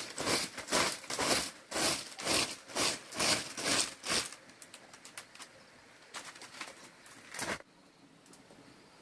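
Handmade broom of bundled dry stalks sweeping a bare dirt floor in quick strokes, about two to three swishes a second, which stop about four seconds in. A few fainter scrapes and one last swish follow near the end.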